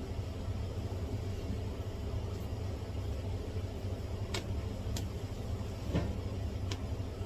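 Steady low hum, with four light, sharp clicks about a second apart in the second half.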